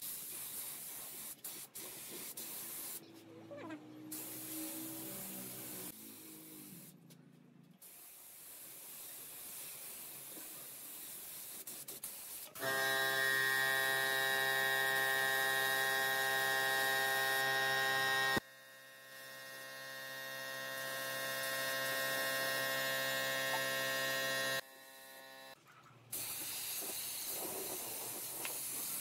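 Gravity-feed spray gun spraying finish onto wood, a soft airy hiss. About 12 seconds in, a louder steady machine hum with a strong pitched drone starts. It dips sharply near 18 seconds, swells slowly again, and stops about 25 seconds in.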